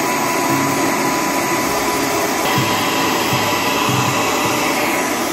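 Handheld hair dryer blowing steadily at close range, a thin steady whine over its rush of air.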